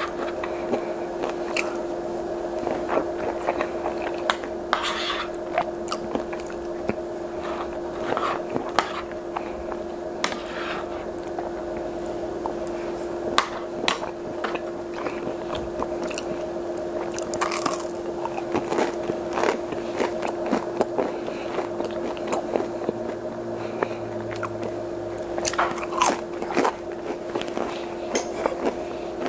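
Close-miked eating of breaded fish sticks and green peas: biting and chewing, with many short sharp crunches and clicks at irregular intervals, over a steady low hum.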